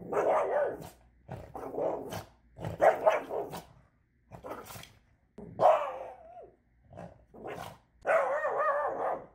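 Boston terrier barking over and over with a tennis ball held in its mouth: about eight short barks, the last a longer cry that wavers in pitch.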